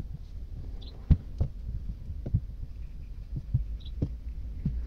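Small bench vise being handled and its jaw closed on the freshly oiled spindle: irregular soft metal knocks and clicks, about eight in all, over a low steady rumble.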